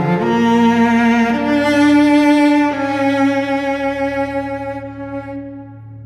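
Solo cello playing slow, sombre, sustained bowed notes. It slides up into the first note, steps up to a higher held note twice, then lets the last note fade away near the end, over a steady low held tone underneath.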